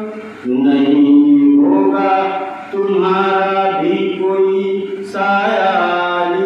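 A man's solo voice chanting a melodic devotional recitation, holding long wavering notes in phrases that break about every two and a half seconds.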